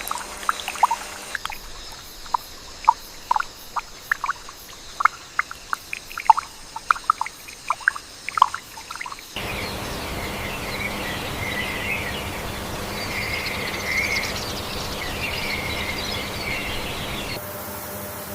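Rainforest ambience in edited segments. First comes a run of irregular short ticks, like dripping. After a sudden change about halfway, a steady hiss carries a chorus of chirping insects.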